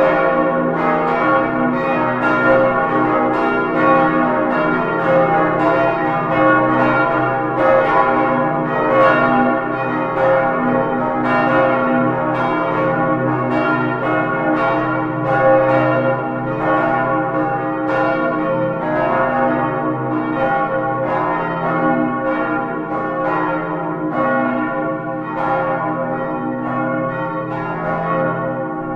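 Full peal of five swinging church bells, tuned D-flat, E-flat, F, A-flat and B-flat and cast in 1947 by Albert Junker of Brilon, heard close up in the bell chamber. The clappers strike in a dense, overlapping sequence, about two or three strokes a second, over the steady hum of the bells still sounding.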